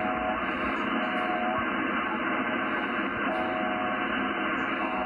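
Yaesu FTDX10 transceiver's loudspeaker giving steady band static from 20-metre sideband reception, a muffled hiss with a faint whistle that comes and goes several times.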